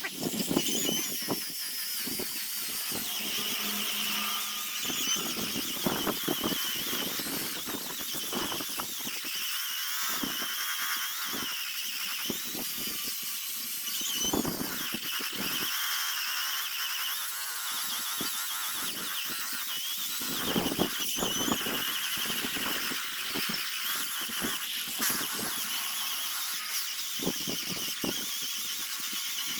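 A high-speed power sanding tool grinding a zelkova root: a steady high whine that wavers in pitch, with irregular scraping strokes as the abrasive bites into the wood.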